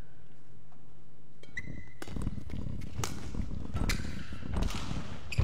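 Badminton rally: racket strikes on the shuttlecock and players' footsteps on the court, starting about one and a half seconds in.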